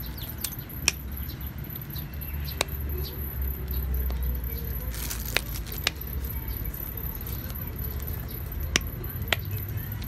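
Scattered sharp clicks, about seven in all, with light handling noise, as a Simple Dimple fidget toy and its metal keychain clip are turned over in the hands.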